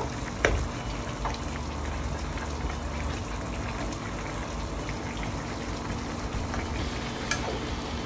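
Pork stew simmering in a pan with a steady bubbling hiss, while a metal spoon stirring it clinks against the pan a few times.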